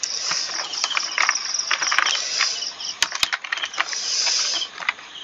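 Computer keyboard typing: a run of irregular key clicks, two of them sharper about three seconds in. Crickets chirp steadily in the background throughout.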